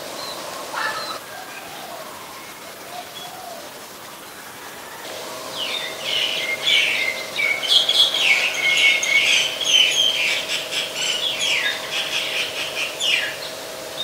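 Common myna calling: after a few faint chirps, a loud fast run of varied chattering and whistled notes starts about five seconds in and goes on for roughly eight seconds.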